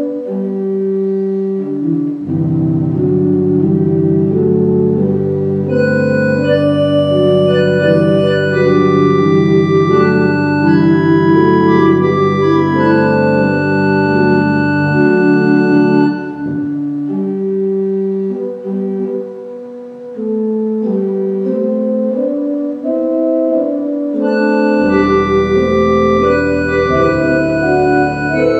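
Organ music: slow, sustained chords with deep pedal bass notes that come in about two seconds in, drop out around the middle and return near the end.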